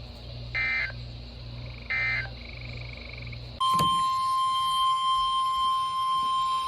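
Two short bursts of EAS/SAME digital data, the end-of-message code, over a low radio hum. Then, about three and a half seconds in, NOAA Weather Radio's 1050 Hz warning alarm tone starts abruptly and holds one steady pitch.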